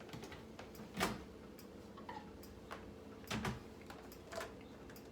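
A few scattered light knocks and clicks, the clearest about a second in and a pair around three and a half seconds in, from a bowl of reheated leftovers being handled, over a faint steady hum.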